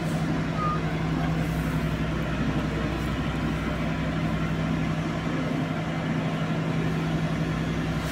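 Diesel engine of a Cometto self-propelled girder transporter running steadily under load as it creeps forward carrying a bridge-girder launcher: an even, low engine drone.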